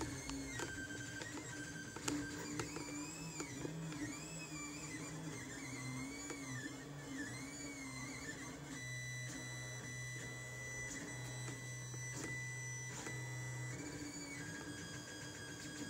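Lulzbot Mini 3D printer printing: its stepper motors whine in tones that rise and fall as the print head follows curved paths, then hold steady from about nine to fourteen seconds in. A few light ticks come through.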